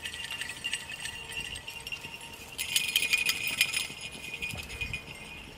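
Light metallic jingling from the beagles' collar hardware as the dogs move along the water's edge, a quick run of small clinks that grows loudest about three seconds in.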